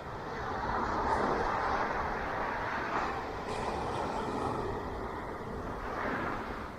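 Ocean waves breaking and washing onto a beach: the surf swells about a second in, with a few fresh crashes of spray, and eases near the end.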